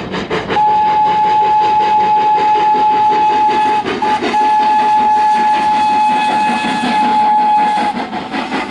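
Steam locomotive whistle blowing the grade-crossing signal: the end of a long blast, a short toot, then a final long blast that stops near the end, over the rumble of the train running past.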